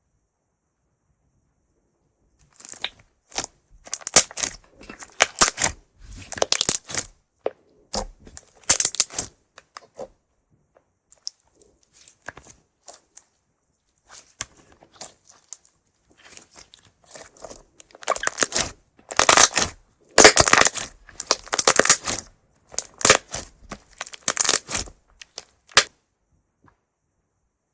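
Clear laundry-starch and borax slime being worked, making runs of wet, sticky clicks and crackles. The crackling starts a couple of seconds in, eases off in the middle, grows louder again and stops shortly before the end.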